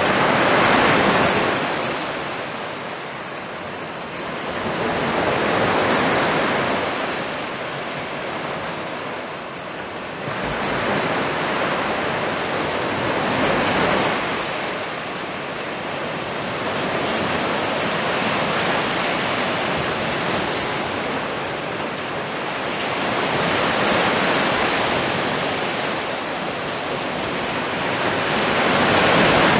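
Black Sea surf breaking on the shore, a steady wash of waves that swells and falls back roughly every five seconds.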